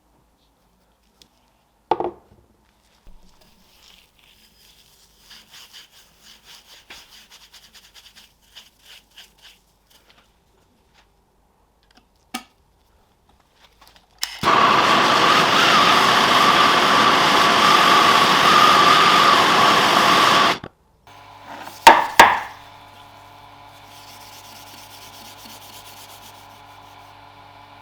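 Metalworking on brass and copper parts. A knock and some light scraping strokes come first. About halfway through, a power tool cuts loudly and steadily for about six seconds and stops abruptly. A steady motor hum follows, with two sharp clanks just after it starts.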